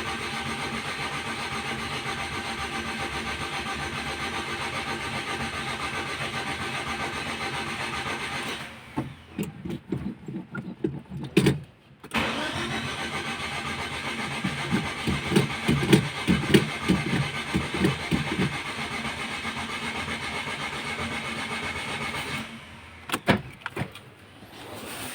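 Starter cranking a Mitsubishi Galant GTI's 4G63 four-cylinder engine in two long attempts, each several seconds, with a pause and a few clicks between them. The engine fails to start: the car's hard-starting fault.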